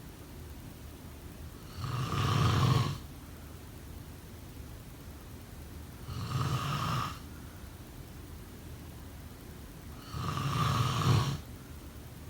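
A sleeping person snoring: three snores about four seconds apart, each lasting about a second, with steady background noise between them.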